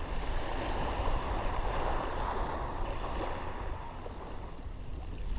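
Small waves washing onto a shingle beach, the wash swelling a second or so in and easing off, with wind rumbling on the microphone.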